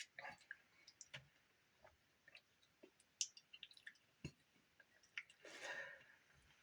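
Near silence with faint, scattered mouth clicks and lip smacks from tasting a drink, and a soft breath about five and a half seconds in.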